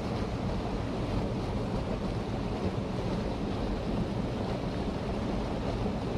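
Mountain stream water rushing over rocks, a steady unbroken noise.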